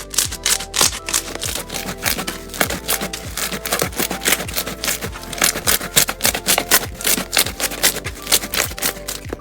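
Slime being squeezed and worked by hand, giving a rapid run of crackling, crunchy clicks over background music with a steady beat.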